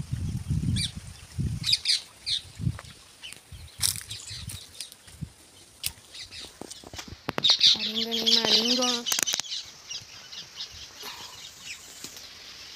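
Short high bird chirps in the open, over rustling and thumps from the phone being carried, with one loud drawn-out voice-like call lasting about a second and a half, starting about seven and a half seconds in.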